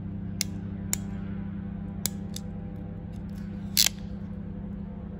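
Molex 63811-6600 hand crimp tool crimping a Molex pin onto 22-gauge wire in its B nest: several light clicks as the handles are squeezed, then one louder snap near the end as the jaws release.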